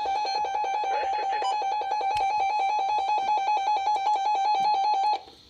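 Weather radio warning alarm tone sounding for the weekly test: one steady electronic tone with a fast pulsing flutter, cutting off suddenly about five seconds in.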